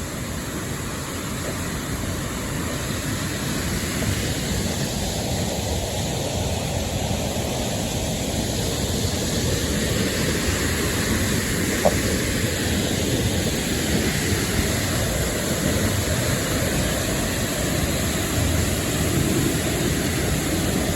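Large waterfall's steady roar of falling water, growing a little louder over the first few seconds. A single brief click near the middle.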